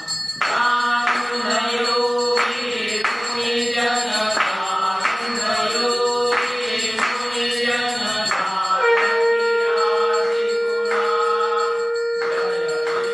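Devotional Hindu chant sung by voices with musical accompaniment, in short repeated phrases. From about nine seconds in, a steady drone note is held beneath the singing.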